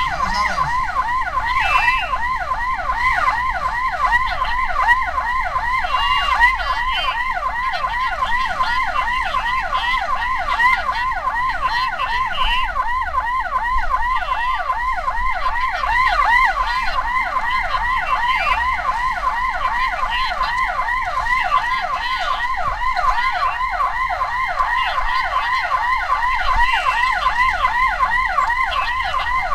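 Electronic emergency-vehicle siren in a fast yelp: quick rising-and-falling sweeps, several a second, repeating steadily without a break.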